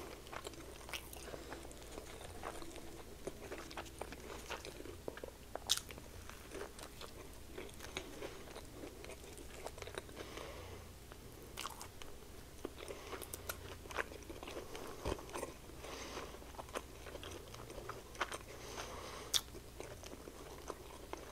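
A person chewing a mouthful of fried chicken sandwich with the mouth closed: soft, wet mouth sounds with a few sharp crunchy clicks scattered through.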